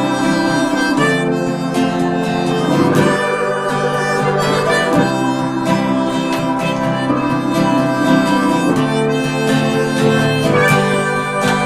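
Harmonica playing the melody over guitar accompaniment in an instrumental break of a folk song.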